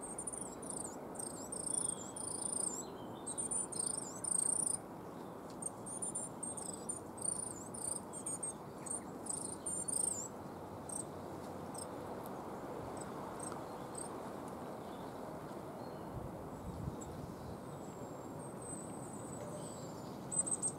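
Coal tit making a strange call: runs of thin, very high-pitched notes, dense for about the first ten seconds, then scattered single notes and a short run of falling notes near the end. A steady low background rumble runs underneath.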